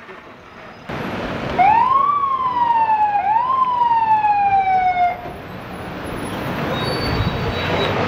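Emergency vehicle siren sounding two whoops, each a quick rise in pitch followed by a slower fall, then cutting off about five seconds in, over the hum of street traffic.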